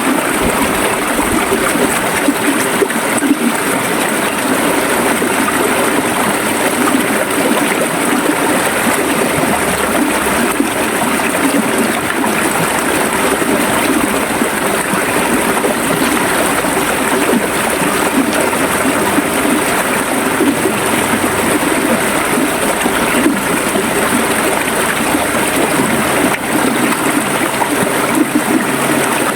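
River water flowing and gurgling over a shallow bed, a steady rush with no pauses.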